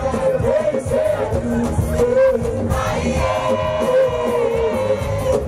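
Live pop music over a PA: a voice singing over an amplified backing track with a steady beat.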